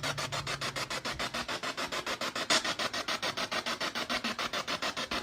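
Spirit box sweeping through radio stations: a fast, even chop of static bursts, about nine a second.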